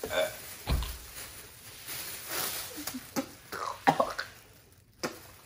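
A man gagging and coughing into a plastic carrier bag, which crinkles against his face, as he chokes on a piece of watermelon he dislikes. There is a dull thump about a second in.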